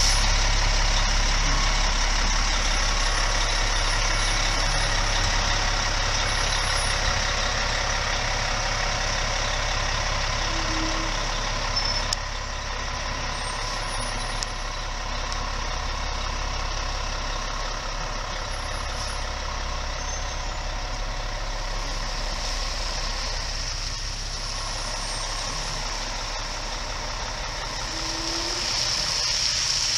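Fire engine's diesel engine running steadily as the truck backs slowly into the firehouse bay.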